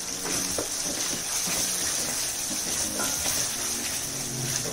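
Chopped brinjal, capsicum and tomato sizzling steadily in hot oil in a metal kadai, with a few light scrapes and taps of a wooden spatula stirring them.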